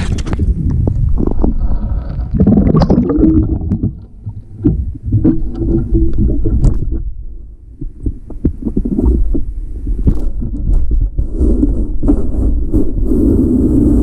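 Muffled underwater sound picked up by a submerged camera: a heavy low rumble with many scattered knocks and clicks as the detectorist moves and searches the lake bottom.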